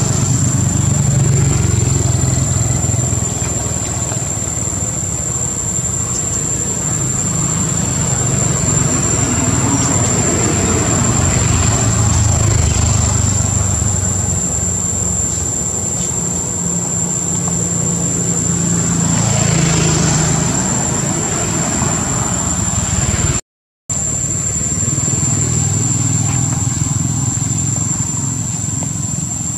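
Steady low rumble that rises and falls a little in strength, with a constant thin high-pitched whine over it. The sound drops out for an instant about 23 seconds in.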